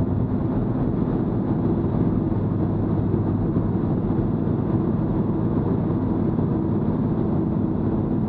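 Cabin noise of a 1959 Chevrolet Apache 3600 pickup slowing from about 90 to 80 km/h: its 350 cubic-inch small-block V8 running steadily, mixed with road and wind noise.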